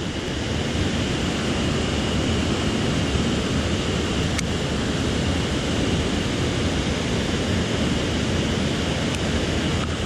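Mountain stream water rushing steadily, with one small click about four and a half seconds in.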